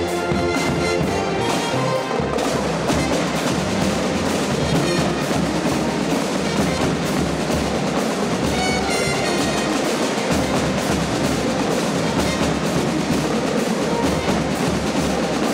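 Military band drum section playing snare drum rolls over bass drum beats, with sustained brass notes dying away in the first two seconds.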